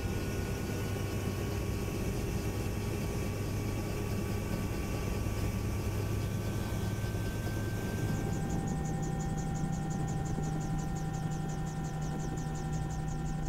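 Aircraft engines and propellers running steadily, heard inside the cabin. About eight seconds in the drone changes pitch and a fast, even pulsing joins it.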